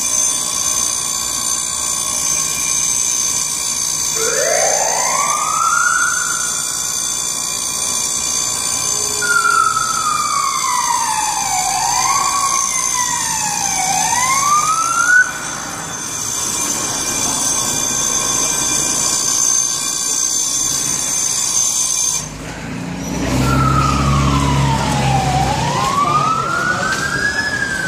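Fire truck siren winding up from low to high about four seconds in, then wailing up and down in repeated sweeps. Near the end it wails again over a low rumble.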